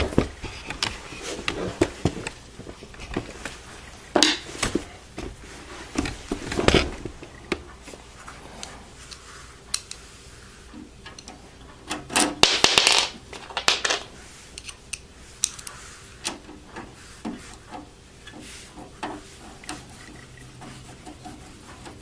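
Scattered clicks, knocks and scraping as a Phillips screwdriver drives the side-panel screw back into a Dell XPS 8300 desktop case. The loudest sound is a rasping scrape lasting about a second and a half, some twelve seconds in.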